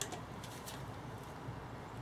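A few faint metallic clicks as a steel bearing-puller end is tried between the inner and outer races of a gearbox bearing, over a low steady hum.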